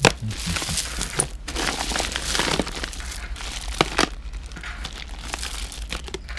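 Jewelry and bead necklaces being handled and sorted: steady crinkling and rustling, with several sharp clicks, the loudest at the very start and two more close together about four seconds in.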